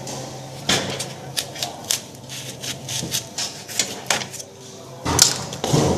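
Irregular sharp taps and clicks of tools and parts being handled, with a louder clatter about five seconds in.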